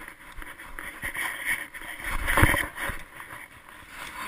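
Rubbing and rustling noise from an action camera strapped to a dog's collar as the dog moves, with one louder bump about two and a half seconds in.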